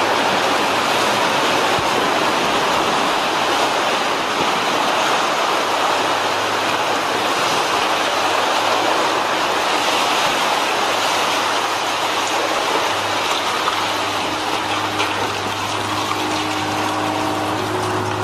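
Steady rushing noise of broken concrete and rubble pouring down a building under demolition, over the low steady hum of the demolition machine's engine.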